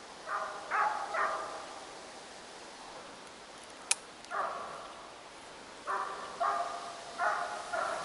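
Young scent hounds baying as they run a hare, in repeated short runs of yelps. A single sharp crack about four seconds in.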